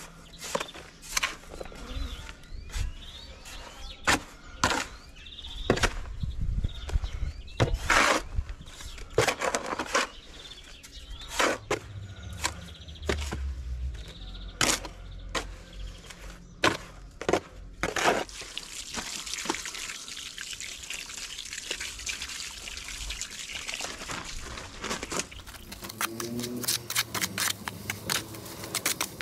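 Steel trowel scraping and knocking in a plastic mortar tub, hand-mixing a 3-to-1 sand and lime mortar in irregular strokes. From about eighteen seconds in, the strokes give way to a steadier hissing scrape with quick small clicks as the mix turns wet.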